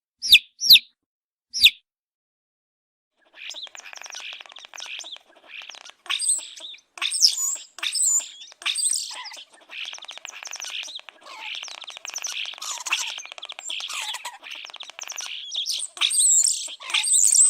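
Baby chicks peeping: three single loud peeps in the first two seconds, then after a short pause a whole brood chirping together, many high overlapping peeps without a break.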